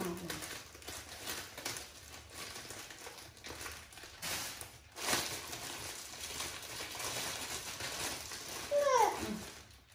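Clear plastic snack bag crinkling and rustling as it is handled and rummaged in. Near the end comes a short falling vocal cry, the loudest sound.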